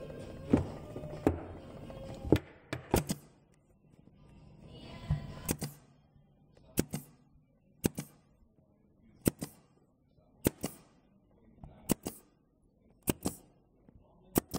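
Pin nailer firing pins into wooden lattice slats: a string of sharp single shots about a second or so apart, one quick double shot among them. Background music plays over the first few seconds.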